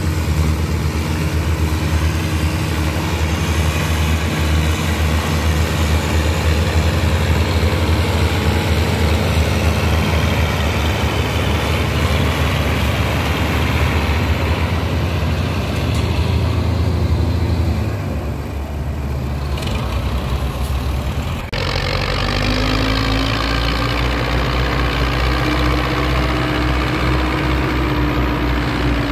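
Belarus tractor's diesel engine running hard under load, hauling a heavily loaded sugarcane trailer. About two-thirds of the way through the sound cuts abruptly to another take of the engine, with a steady whine that rises slightly in pitch.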